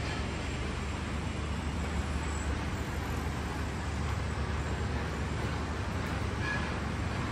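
Steady low rumble of distant city traffic, even and unbroken.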